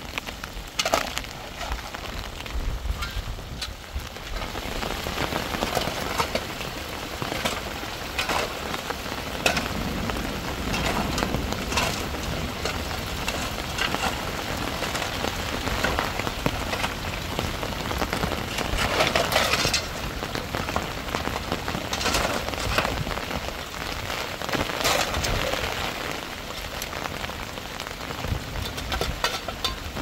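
Heavy rain falling, a dense steady patter with many irregular sharp crackles, over a low rumble of strong wind.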